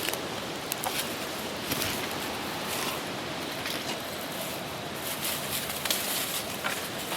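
Footsteps through dry leaf litter and brush, with scattered sharp crackles and twig snaps over a steady outdoor hiss.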